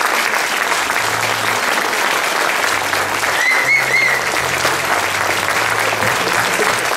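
A roomful of people applauding, dense steady clapping that neither builds nor fades.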